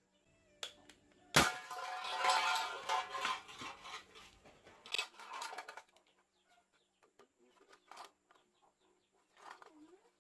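Homemade PVC-pipe methylated-spirit combustion gun firing with one sharp bang about a second and a half in, followed by several seconds of loud squawking calls.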